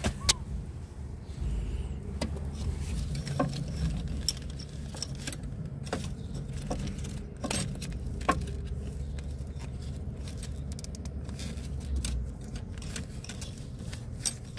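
Scattered light clinks and taps of metal parts being handled: a gloved hand working at a front strut's broken coil spring and spring seat. A low steady rumble runs underneath.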